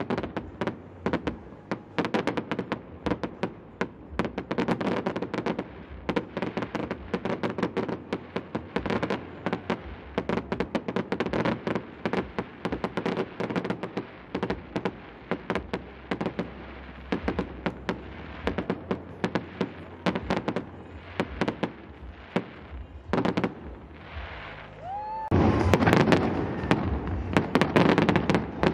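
Fireworks display: a rapid, continuous run of bangs and crackles from aerial shells bursting, growing louder and denser near the end.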